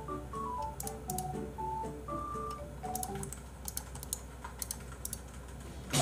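Soft background music with a light, simple melody, over scattered short computer clicks. At the very end a sudden louder noise cuts in.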